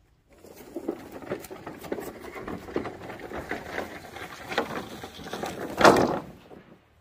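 Dense rustling and crackling of dry plant material, with a louder crunch near the end.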